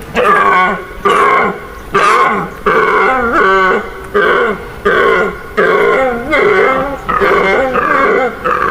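An animal calling over and over in short, pitched calls, about three every two seconds.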